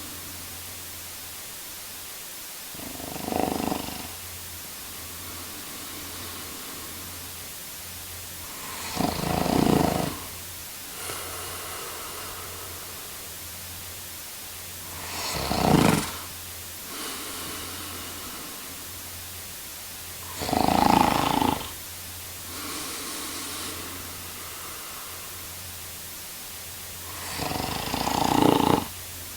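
A man snoring in slow, even cycles: five loud snores about six seconds apart, each lasting about a second, with a softer breath out between them. A steady low hum and hiss runs underneath.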